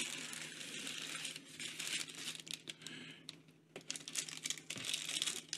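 White tissue paper rustling and crinkling as hands pull it aside in a shipping box. There are two spells of rustling: one at the start and another about four seconds in.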